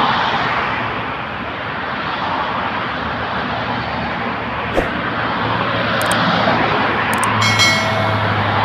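Heavy road traffic rushing past: a steady wash of engine and tyre noise, with a low engine hum building in the second half. A short, steady, pitched tone sounds near the end.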